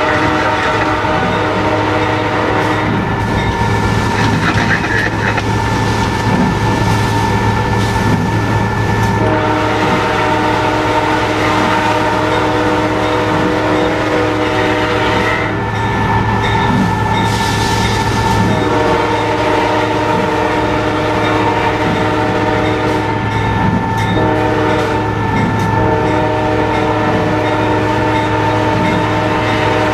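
Locomotive air horn sounding a series of long chord blasts, each several seconds, with short breaks between, heard from inside the cab over the steady rumble of the moving locomotive.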